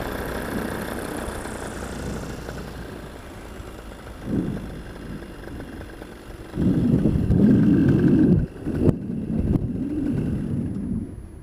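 Paramotor engine running at low throttle during the landing descent, its hum fading over the first few seconds. From about six and a half seconds in, wind buffets the microphone loudly in gusts.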